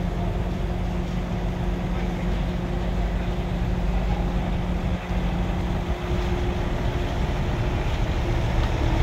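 Heavy diesel engines running steadily with a constant low hum: a truck-mounted crane holding a suspended shipping container, with a container truck pulling in alongside.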